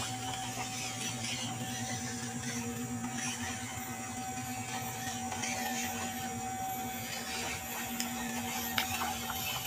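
WPL D12 RC truck's small electric motor and gearbox whining steadily as it crawls along under a load of wood, with a couple of clicks near the end.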